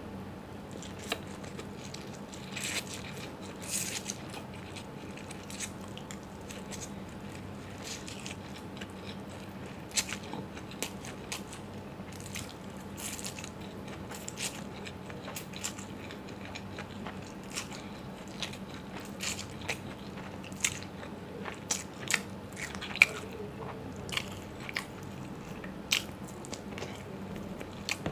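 Close-up eating sounds of a mouthful of chow mein noodles being chewed, with many short sharp clicks and smacks that come more often and louder in the last few seconds, over a faint steady hum.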